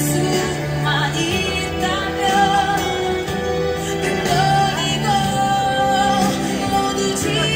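A song playing at a steady level: a singer's melody over instrumental backing, with sustained bass notes underneath.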